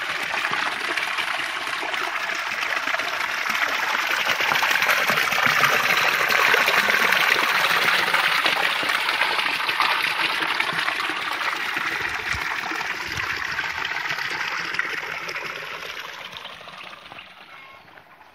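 Spring water pouring from a pipe into a stone basin: a steady splashing gush of water falling into the pool, fading away near the end.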